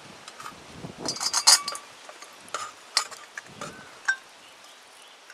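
Light metallic clinks and taps as a dial thermometer is handled and fitted into the lid of a stainless steel billy pot: a quick cluster about a second in, then a few single clinks, one of them ringing briefly.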